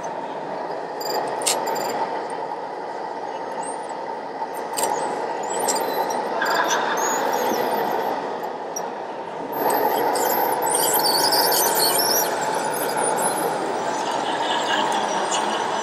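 A radio-controlled crawler dozer's tracks squealing in short, high, wavering squeaks over a steady rushing noise as it pushes a block, with the squeals thickest about ten to thirteen seconds in.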